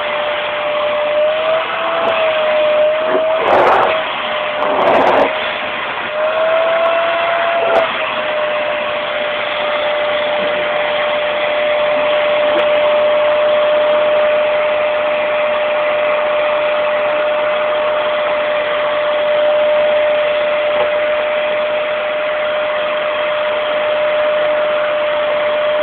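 Vacuum cleaner running steadily with a constant motor whine. The pitch rises briefly twice in the first eight seconds, and two short knocks come about three and a half and five seconds in.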